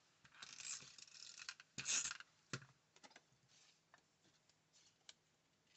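Paper pieces being handled and pressed down onto a small card: soft rustles in the first two seconds, the loudest about two seconds in, then a few scattered light clicks and taps.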